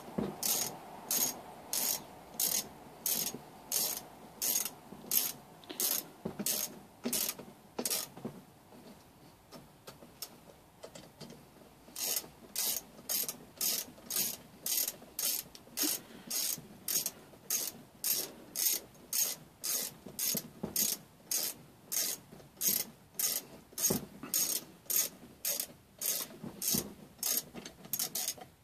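A ratcheting hand tool clicking in short bursts, about two a second, as a fastener is worked in or out during engine reassembly. It stops for about four seconds partway through, then resumes steadily.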